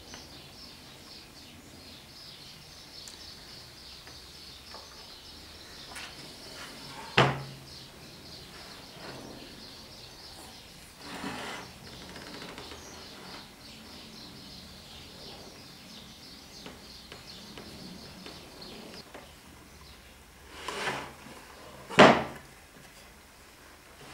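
Chestnut wood boards being handled, set down and stood upright on a workbench: a sharp wooden knock about seven seconds in and another near the end, with softer bumps between, over a faint high hiss.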